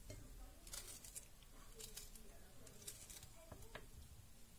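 Near silence with a handful of faint, brief squishes and rustles from fingers pressing cherry tomato pieces into a baking dish of raw artichokes, potatoes and rice.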